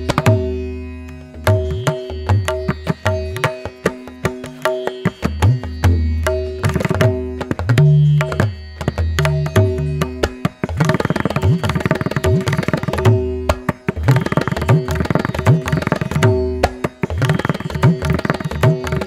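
Background music: a fast hand-drum pattern over held low notes.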